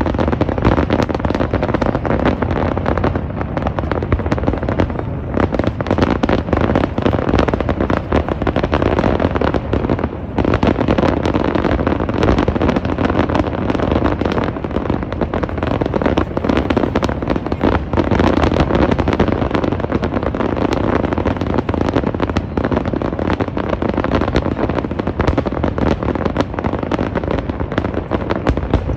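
Aerial fireworks bursting in a dense, continuous barrage: overlapping bangs and crackles with hardly a gap, and a brief lull about ten seconds in.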